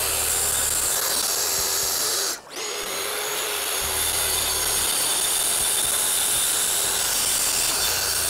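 Festool TSC 55 KEB cordless track saw running and cutting along its guide rail through a thick elm slab. The saw's steady noise breaks off briefly about two and a half seconds in, then carries on.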